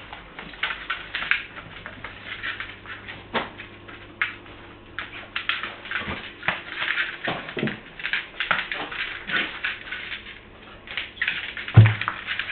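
A Dandie Dinmont Terrier puppy whining in short high-pitched clusters during play, amid scattered clicks and knocks. One heavy thump, the loudest sound, comes a little before the end.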